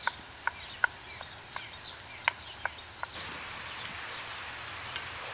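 Wooden spoon knocking sharply against a cast iron pan while breaking up minced meat, about seven knocks in the first three seconds. After that a steady hiss of the meat frying takes over, with faint bird chirps.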